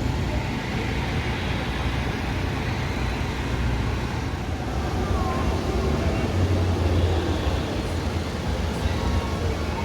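Steady low rumble of outdoor ambience, with faint distant voices mixed in.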